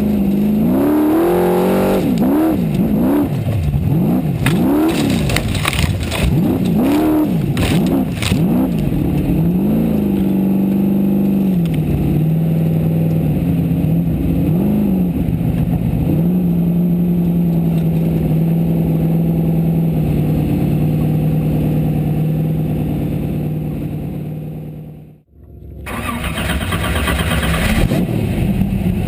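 Formula Offroad buggy's racing engine heard from inside the cockpit, revved hard in rapid up-and-down bursts while climbing a steep sand hill, with knocks and clatter from the chassis. It then holds a steady note. Near the end the sound drops out briefly and comes back.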